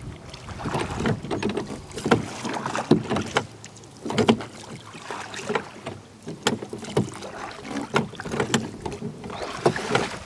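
Wooden oars of a rowboat knocking in their rowlocks with each stroke as two people row, a sharp knock about every second over the wash of the blades in the water.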